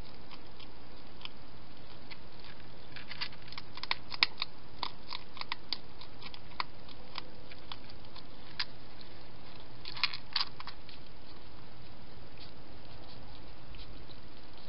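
Wild hedgehog eating, with irregular sharp crunches as it chews. The crunches are busiest a few seconds in and again around ten seconds, over a steady hiss.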